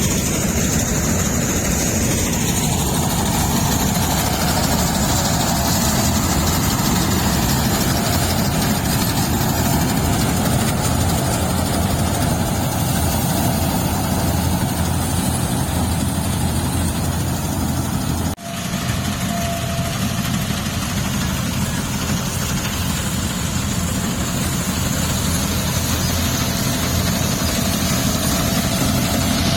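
Heavy farm machine's engine running steadily during rice harvesting, with a brief break in the sound about 18 seconds in.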